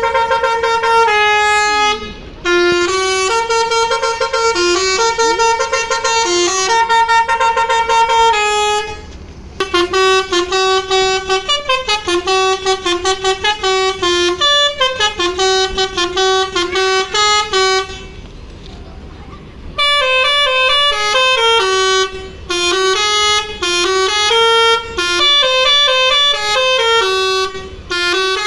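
Indonesian 'telolet' multi-tone bus horns playing quick tunes of stepped notes, trading runs with short breaks and a longer pause about two-thirds of the way through.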